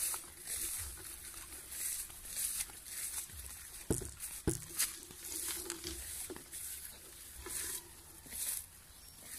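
Footsteps through tall grass and brush, with leaves and stems rustling against the legs at a walking pace. A couple of sharper thuds land around four seconds in.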